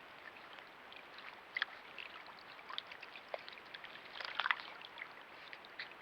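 Small water splashes, drips and wet clicks over a steady trickling hiss, from a young otter grooming itself in the water, with a flurry of splashes about four and a half seconds in.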